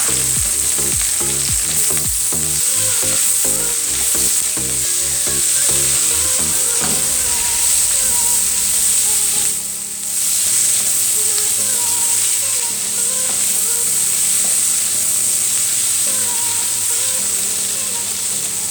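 Shredded cabbage sizzling in hot oil in a frying pan as it is stirred, a steady frying hiss with a brief drop about halfway through.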